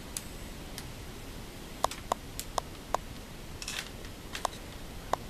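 About ten sharp, irregularly spaced clicks over a steady low hiss, with a short rustle a little past halfway.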